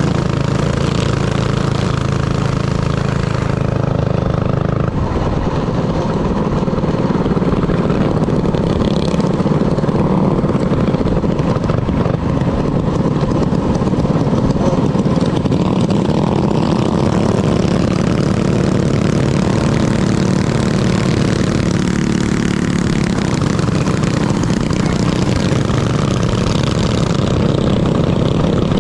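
Minibike engine running continuously, its pitch shifting about five seconds in.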